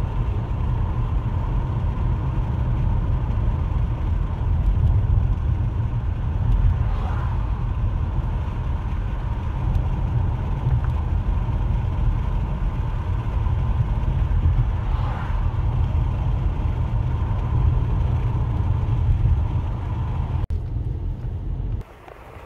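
Steady low road rumble of a moving car, heard from inside the cabin, with a faint steady whine over it. Near the end it cuts off abruptly to a much quieter outdoor background.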